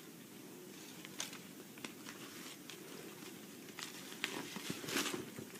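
Faint rustling of bedding with scattered soft taps as a cat scrambles about on a bed cover; the taps come more often near the end.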